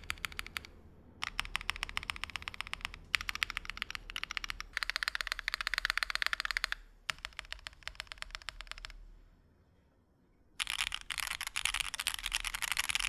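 Fast typing on a Wind Studio Sin65 custom mechanical keyboard with diamond switches. Runs of quick keystrokes are broken by short pauses, with a longer pause of about a second and a half about two-thirds of the way through.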